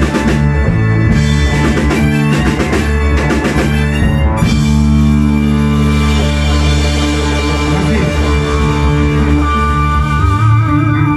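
Rock band playing live: drum kit with cymbals, electric guitar and electric bass. About four seconds in the drums stop and the band lets a chord ring on, and a high note wavers with vibrato near the end.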